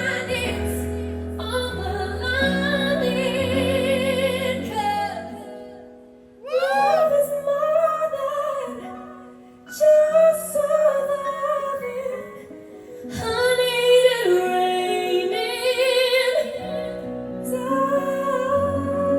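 A woman singing a pop song live with band accompaniment, holding long notes with vibrato; the music drops away briefly twice, about six and nine seconds in, before the voice comes back in.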